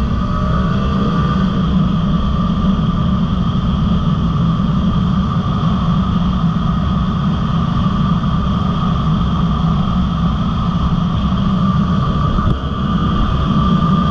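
Dirt bike engine running steadily while riding at a constant speed, with a brief dip in loudness near the end.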